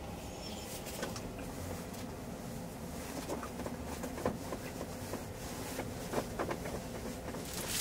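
Quiet room tone inside a camper van, with a steady low background noise and scattered faint clicks and taps.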